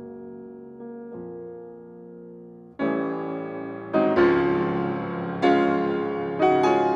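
Background piano music: soft sustained chords, then a louder chord struck about three seconds in and more chords after it at a steady pace.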